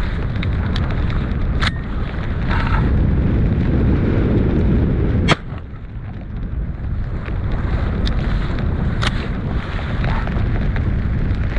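Strong wind buffeting the microphone, with one sharp shotgun shot about five seconds in, after which the wind noise drops for a moment.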